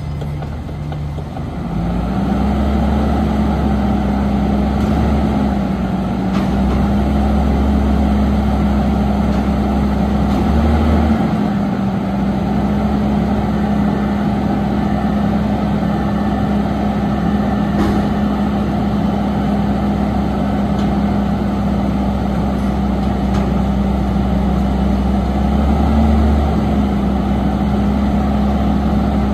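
Autocar ACX garbage truck's engine stepping up in speed about a second and a half in, then held at a steady raised speed while the truck stands still, running the hydraulic packer to compact a load of recycling.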